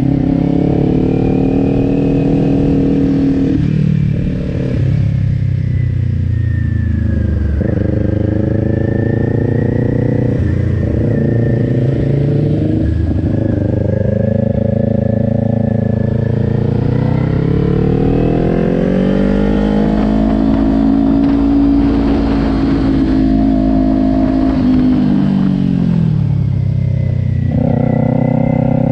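2020 Kawasaki Ninja 400's parallel-twin engine heard from on board while lapping a tight track, its revs rising and falling again and again through the corners. A long climb in revs about two-thirds through is held for a few seconds and then drops sharply near the end before picking up again.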